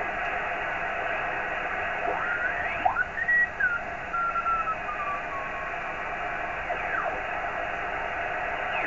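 Amateur radio receiver playing an amateur satellite downlink: steady hiss with thin whistling carrier tones that slide in pitch, one rising about two seconds in, another falling slowly over the next few seconds, and a quick sweep near the end.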